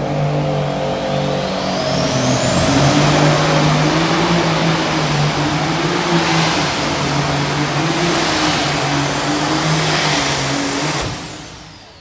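Light super stock pulling tractor's turbocharged diesel engine running at full power under load, with a high turbo whine that climbs over the first few seconds and then holds. About 11 seconds in the engine is shut off and the level drops sharply, and the whine begins to fall as the turbo spools down.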